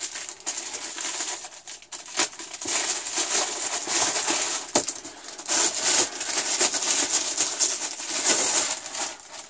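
Clear plastic bag crinkling and rustling as it is handled and pulled open by hand, with a few sharp crackles.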